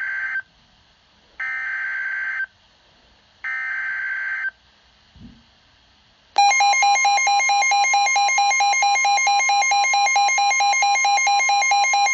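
Emergency Alert System header: short bursts of screechy digital data tones, each about a second long and about two seconds apart. About six seconds in, a loud alert tone starts, pulsing rapidly over a steady tone. This is the signal that a new weather warning is about to be broadcast.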